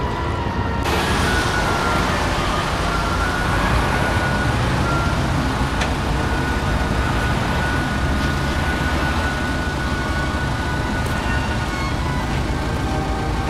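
Construction-site machinery running steadily, a low engine rumble under an even noise with a faint held high tone, starting abruptly about a second in.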